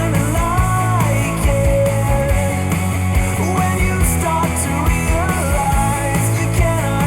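Rock music with a steady heavy bass and a sliding lead melody line, played back through Bowers & Wilkins PX7 wireless noise-cancelling headphones.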